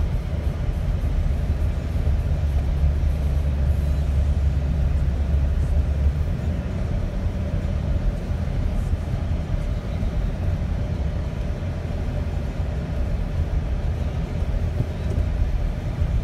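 Inside the cab of a 2017 GMC Canyon, its four-cylinder engine holds highway speed on cruise control while pulling a heavy trailer, with a steady engine drone and road noise. The low rumble eases a little about six seconds in.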